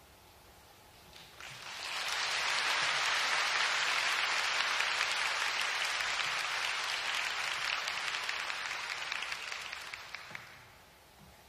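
Audience applauding, starting about a second in, building quickly, holding steady, then dying away near the end.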